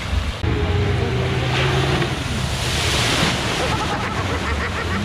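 An off-road 4x4's engine running under load as it pushes through a deep mud-and-water hole, with a burst of splashing water about two and a half seconds in.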